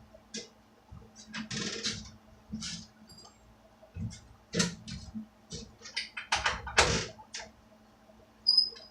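Irregular clicks, knocks and short scrapes of hand work on a workbench, as a part and its fastening hardware are fitted, with the loudest knocks about two thirds of the way through.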